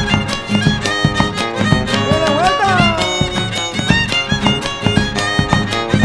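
Gato folk dance tune played by a small band: a fiddle carries the melody, with a few sliding notes about two seconds in, over a steady rhythmic accompaniment.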